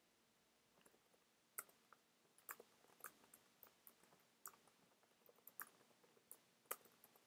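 Faint computer keyboard typing: single keystroke clicks at an uneven pace, about two a second.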